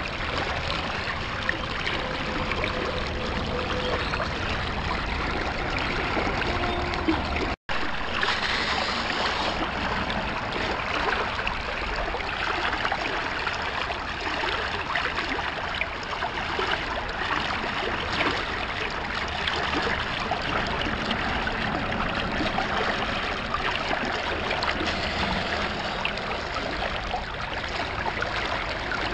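Steady rush of flowing water, broken by a split-second gap about seven or eight seconds in.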